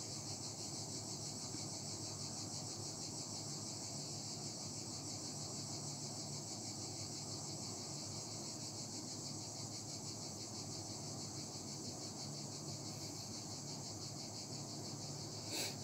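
A steady, high-pitched trilling hiss with a faint low hum beneath it, unchanged throughout; a soft brief noise comes near the end.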